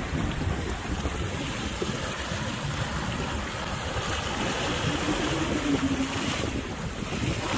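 Wind buffeting the microphone and waves breaking and rushing along the hull of a sailboat under way in choppy seas.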